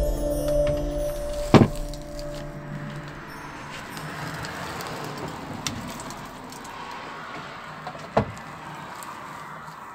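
Background music fading out, then a low, steady noise broken by two sharp knocks, one about a second and a half in and one near the end.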